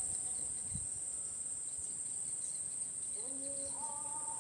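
Crickets chirring steadily at a high pitch. About three seconds in, faint held tones of a distant voice begin.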